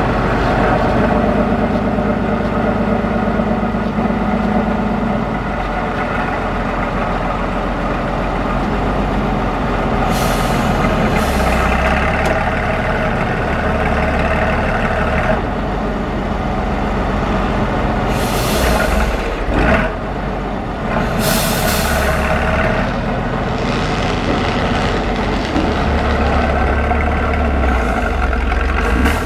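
Diesel engine of an eight-wheeled Tatra 813 trial truck running under load as it crawls up a steep dirt slope. Short hisses break in about ten seconds in and twice more around nineteen and twenty-two seconds.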